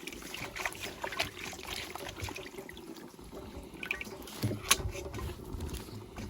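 Water trickling and bubbling, with many small irregular clicks and one sharp knock about three-quarters of the way through.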